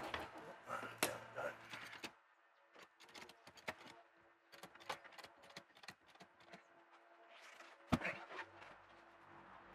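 Irregular light clicks and knocks of a jack being worked and wooden packing being handled, with a single sharper knock near the end and a faint steady hum behind.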